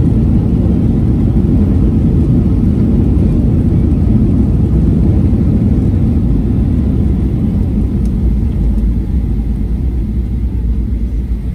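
Cabin noise aboard a Boeing 737-900 airliner: a steady low rumble of the engines and airflow, easing slightly near the end.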